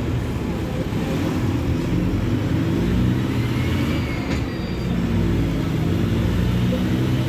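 Mercedes-Benz OF-1721 Bluetec 5 bus's diesel engine running under way, with a short dip in level about four and a half seconds in before it pulls steadily again.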